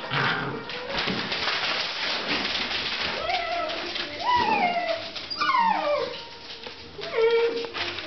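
Basset Artésien Normand puppies whining: several separate whimpering calls from about three seconds in, each rising and then sliding down in pitch, after a stretch of rustling and scuffling noise.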